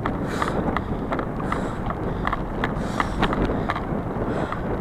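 Bicycle pulled along a dirt forest trail by a running dog: steady rolling and wind noise on the microphone, with frequent small irregular clicks and rattles.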